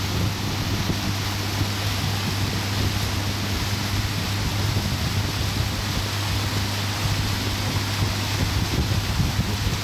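A pontoon boat's outboard motor running at a steady cruising speed, a constant low hum, with wind on the microphone and the rush of water.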